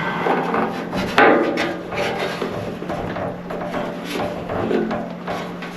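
Hand tools and fingers working a wire terminal in a cramped spot on a garden tractor: irregular knocks, clicks and rubbing, over a steady low hum.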